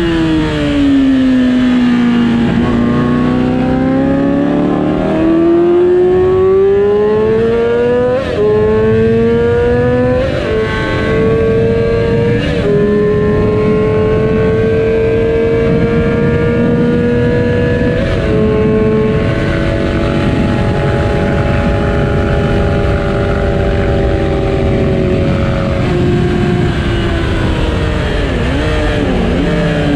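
2007 Yamaha R6's 600 cc inline-four engine at full track speed: its note drops off, then climbs hard through the gears with three quick upshifts, holds at high revs, and wavers through a series of downshifts near the end. A steady rushing noise lies underneath.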